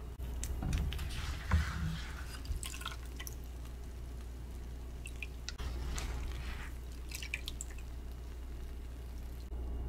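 Doughnuts being lifted out of hot frying oil on a metal skimmer: oil drips and crackles off them, with scattered light clicks. The sounds are busiest in the first couple of seconds and again around six to seven seconds in.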